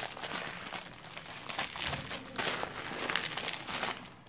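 Packaging crinkling and rustling in irregular bursts as it is pulled open by hand to free a shaker bottle. The rustling stops just before the end.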